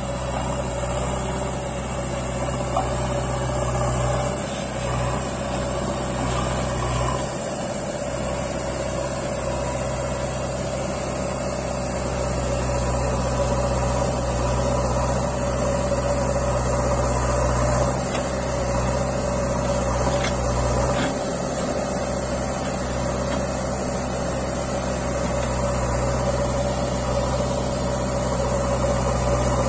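Diesel engines of a JCB backhoe loader and a tipper lorry running steadily, the low engine note dipping briefly a few times.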